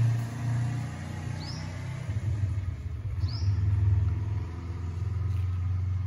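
A motorcycle's engine running as it rides away down the street, heard as a steady low rumble. Two short bird chirps come through over it.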